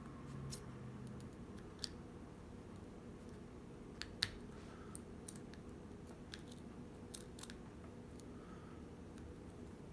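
Lock pick and tension wrench working inside a small 5-pin pin-tumbler garage door lock: faint, irregular metal clicks and light scrapes as the pins are probed, the sharpest click about four seconds in. A steady low hum lies underneath.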